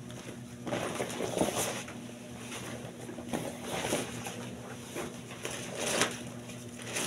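Rustling and swishing of a plastic rain suit being pulled on and adjusted, in several separate bursts.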